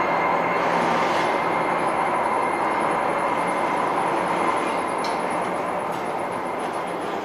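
Railway turntable turning with a steam locomotive on it: a steady mechanical rumble with a steady hum, fading slowly.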